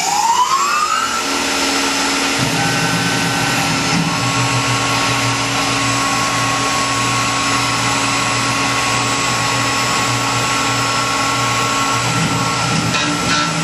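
Tormach PCNC 1100 CNC mill spindle spinning up with a rising whine, then running steadily at speed over a hiss. A lower hum joins about two seconds in, and a second steady tone sounds from about four seconds until near the end.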